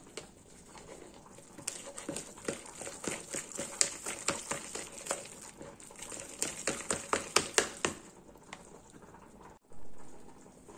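Metal spoon stirring thick chocolate batter in a plastic measuring jug, clicking quickly and irregularly against the sides as the batter is mixed smooth and lump-free. The clicking stops a couple of seconds before the end.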